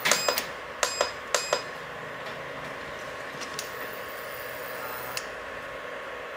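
Stainless steel wok clinking against the cooktop several times in the first second and a half, each knock ringing briefly, as it is set in place. After that only a faint steady hum, with a thin high tone that cuts off about five seconds in.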